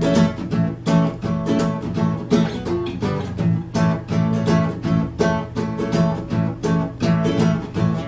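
Acoustic guitar strummed in an even rhythm, an instrumental passage of a song with no voice.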